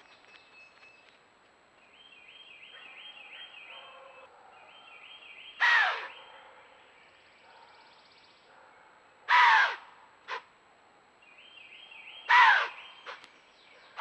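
White-tailed deer blowing: three loud, harsh snorts falling in pitch, each under half a second and three to four seconds apart, with a short fainter one after the second. Faint songbird trills repeat behind them.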